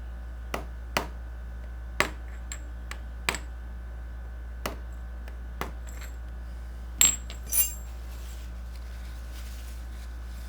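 Yamaha XS650 left main crankshaft oil seal being tapped into the engine case: about ten sharp metallic taps at uneven spacing, the two loudest with a brief ring about seven seconds in.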